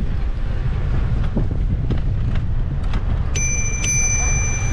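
Steady low rumble, then a bicycle bell rung twice in quick succession near the end, its bright metallic ring carrying on after the second strike.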